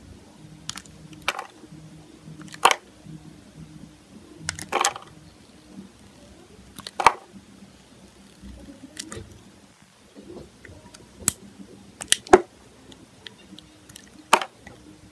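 Snap-off utility knife blade cutting thin slices from a bar of translucent red soap: about ten crisp snaps at uneven intervals, two of them close together near the end.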